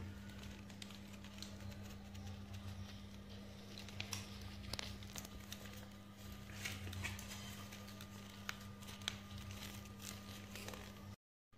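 Quiet room tone with a steady low hum, broken by faint scattered clicks and rustles from handling a folded paper puppet. The sound drops out briefly near the end.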